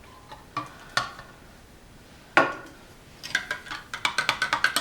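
A spoon stirring hot chocolate in a mug, clinking quickly against its sides about five or six times a second from about three seconds in. Before that, a few single knocks of crockery, the loudest about halfway through.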